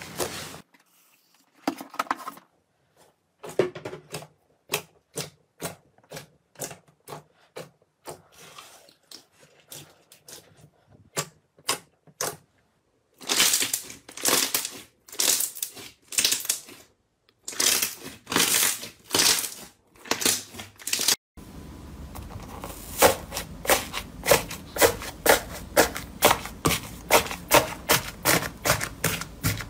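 Slime being squeezed, kneaded and pressed by hand, giving runs of sticky clicks and small air-bubble pops. The runs are sparse at first and loudest around the middle, and after a cut near two-thirds of the way they become quick, even clicking over a faint hiss.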